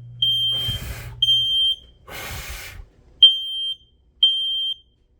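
Smoke alarm in full alarm from test smoke, sounding its three-beep pattern: a high-pitched piezo beep three times about once a second, a short pause, then three more beeps. Two bursts of hissing rush come between the beep groups, about one and two seconds in.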